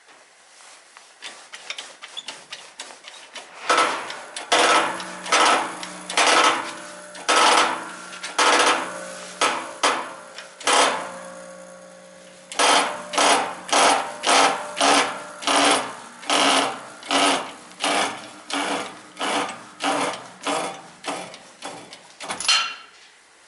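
Repeated hammer blows on metal, each followed by a ringing note: a few light taps, then heavy strikes from about four seconds in, a brief pause around the middle, then a steady run of about two blows a second that stops shortly before the end.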